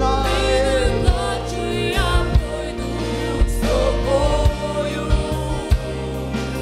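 Christian worship song: a voice singing a slow melody over instrumental accompaniment with sustained low notes and occasional drum hits.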